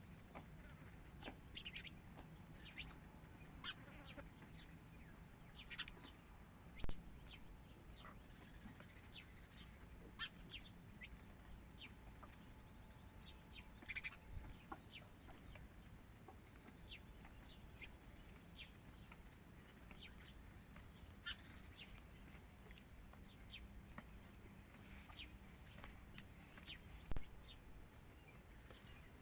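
Hens clucking softly now and then, with short high chirps scattered throughout. Two sharp knocks stand out, about six seconds in and near the end.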